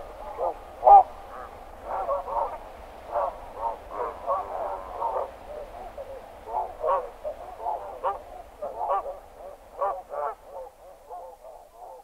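A roosting flock of barnacle geese calling: many short, overlapping calls in a dense chorus that thins out and fades away near the end.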